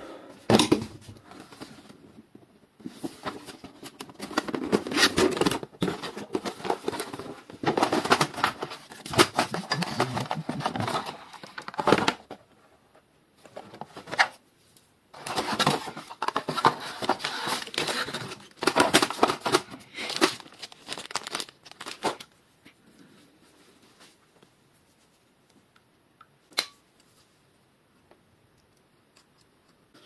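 Packaging of a new brake set being unpacked by hand: several stretches of crinkling and tearing wrapping, then a quieter spell with one sharp click near the end.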